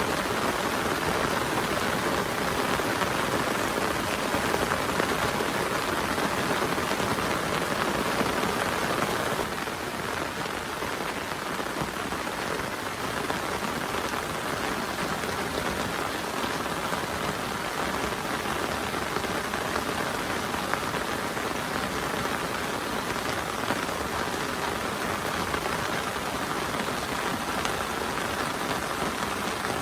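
Heavy rain falling steadily as a dense, even hiss, a little quieter from about ten seconds in.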